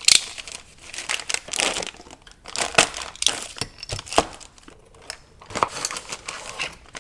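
Plastic packaging crinkling and rustling in irregular bursts as a new replacement tie rod is unwrapped.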